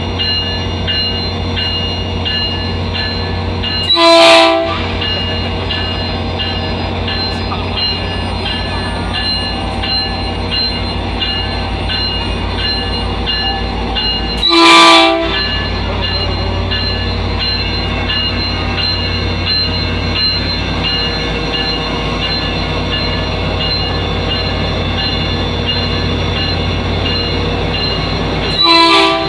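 A train horn sounds three short blasts, about ten seconds apart, over the steady drone of a train running.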